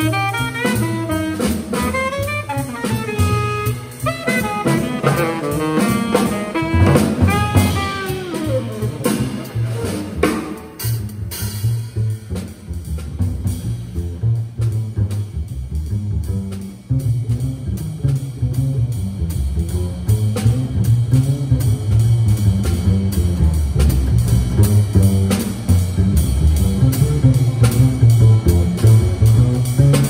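Live jazz trio of tenor saxophone, plucked double bass and drum kit. The tenor sax line ends about a third of the way in, leaving the double bass and drums playing on, with the bass notes loudest.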